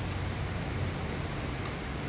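Fried rice being stirred and turned with a metal spatula in a nonstick frying pan, a steady cooking noise with a low hum under it and a couple of faint clicks of the spatula against the pan.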